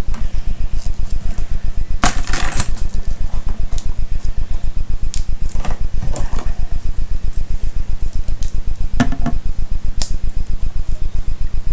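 Plastic Lego pieces clicking and clattering as they are handled and pressed together, a cluster of clicks about two seconds in and scattered clicks later. Under them runs a loud, steady, rapidly pulsing low hum.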